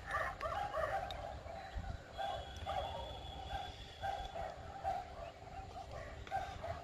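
Dogs barking over and over in the background, a few short barks a second with brief pauses.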